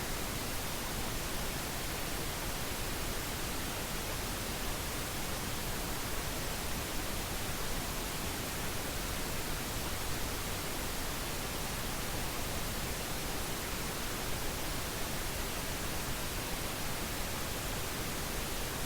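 Pink noise test signal: steady hiss with equal energy per octave, its spectrum falling by 3 dB per octave so the low end carries weight, unchanging throughout.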